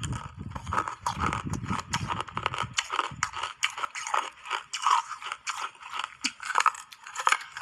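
Teeth biting and crunching a slab of purple ice frozen in a honeycomb-patterned tray, ASMR-style: a rapid, dense run of crisp crackles and crunches. A low rumble sits under the first three seconds or so.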